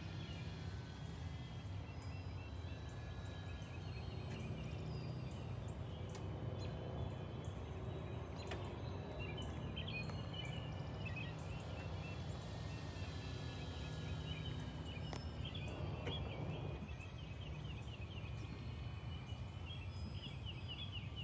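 Birds calling in scattered bursts of chirps and warbles over a steady low rumble.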